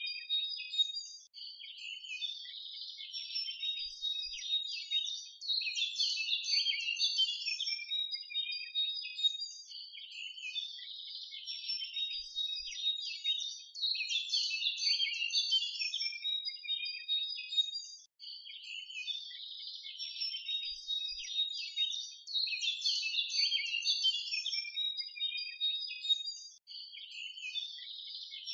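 A dense chorus of small birds chirping and twittering, all high-pitched, with the same stretch of song seeming to come round again about every eight and a half seconds.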